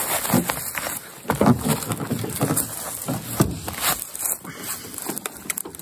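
A canoe being hauled over a fallen log: irregular knocks, bumps and scrapes of the hull and gunwales, with rustling of brush underfoot.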